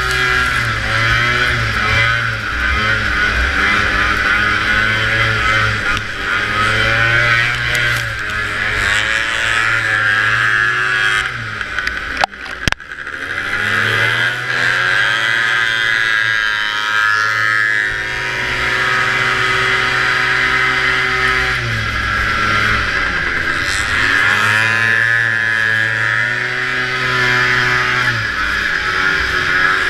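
An antique snowmobile's two-stroke engine at race pace, heard from the rider's helmet camera. It climbs in pitch under throttle and drops back when the throttle eases, about five times over. There is a brief cut-out with a sharp knock about twelve seconds in.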